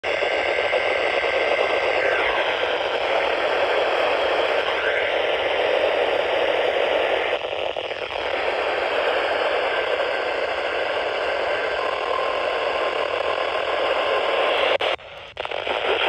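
Steady static hiss from a Midland NOAA weather radio's speaker while it is tuned on the weather band, with a faint steady tone near the end. The hiss cuts out briefly just before the radio settles on 162.475 MHz.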